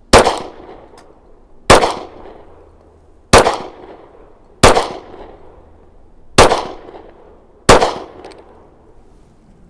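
Glock 36 subcompact .45 ACP pistol firing six single shots at a slow, steady pace, about one every second and a half. Each is a sharp crack with a short echoing tail, emptying its six-round magazine.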